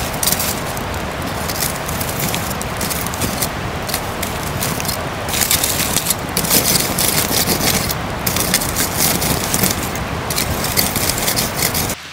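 Food sizzling in a hot pan, a dense hiss full of fine crackles and pops that cuts off abruptly at the very end.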